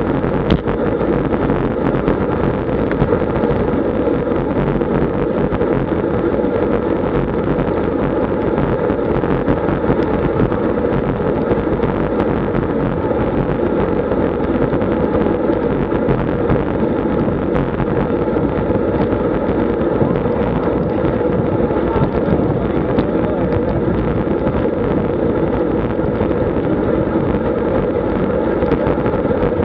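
Steady wind rush on an action camera's microphone, mixed with tyre and road noise, from a road bike riding in a group at about 35 to 40 km/h.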